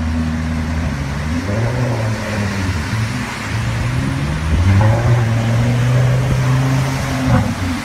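A sports car's engine revving up and down as it drives through deep flood water, over a steady rushing noise of water. The revving is loudest a little past the middle, as the car throws up spray.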